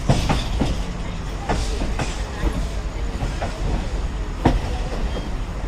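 Train wheels running on the track: a steady low rumble with sharp, irregularly spaced clicks as the wheels cross rail joints, the loudest about four and a half seconds in.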